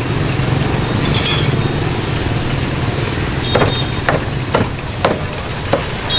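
Cleaver chopping through a roast duck on a round wooden chopping block: a run of sharp chops about two a second, starting a little past halfway. Steady street traffic noise runs underneath.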